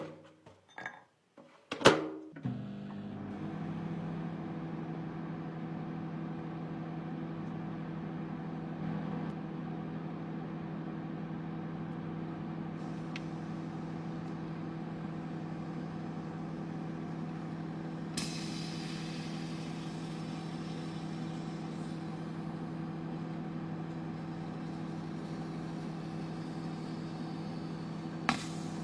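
Microwave oven starting with a sharp click about two seconds in, then running with a steady hum. About eighteen seconds in a sudden hiss rises and fades over a few seconds, and a single click comes near the end.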